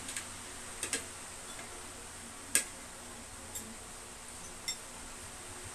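Metal forks, spoons and chopsticks clinking against ceramic bowls and plates as people eat: about six short sharp clinks, the loudest about two and a half seconds in.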